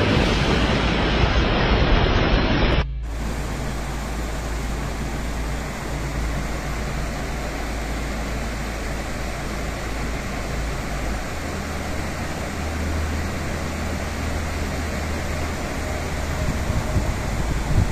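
Steady hiss of heavy rain with a low rumble of traffic underneath. A louder stretch of sound cuts off abruptly about three seconds in.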